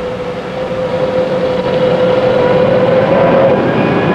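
Boeing 707 turbojet engine, number three, starting up: a whine that grows louder and rises slowly in pitch as the engine spools up, with higher whining tones joining about halfway through.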